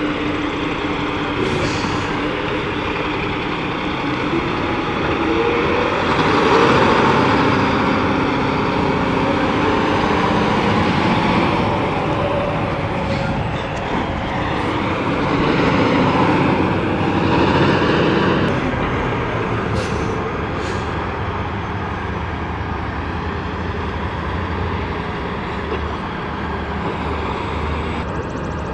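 Heavy diesel semi-trucks idling and pulling slowly past, with the engine noise swelling twice as trucks go by. A few short hisses of air from the trucks' air brakes.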